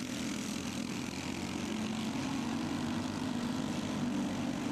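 Several racing go-kart engines buzzing steadily at speed as a pack of karts races on a dirt oval.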